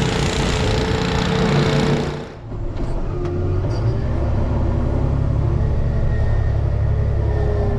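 Snow-plowing machine's engine working hard under load, with a loud rushing noise over it that cuts off sharply a little over two seconds in. After that the engine runs on more steadily.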